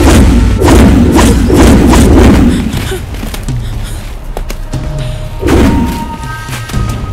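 Dramatic film background score: heavy booming hits that sweep down in pitch over a deep steady bass, several in the first two and a half seconds and another about five and a half seconds in.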